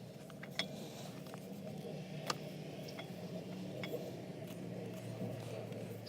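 Scattered light metallic clicks and clinks of hand tools working at a driveshaft center support bearing, a sharp tick every second or so, over a steady low hum.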